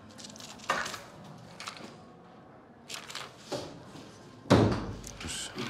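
A few short knocks and rustles at irregular moments, then a louder dull thump about four and a half seconds in.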